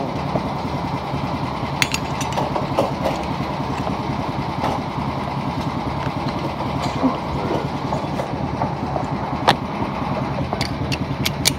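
Go-kart engines running steadily on the track, a dense low drone with a rapid flutter, with a few scattered sharp clicks and knocks.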